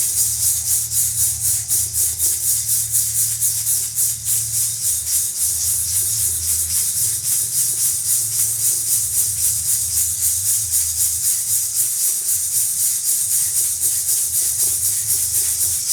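A hand rattle or maraca shaken steadily in an even rhythm, about three shakes a second, over a low steady hum.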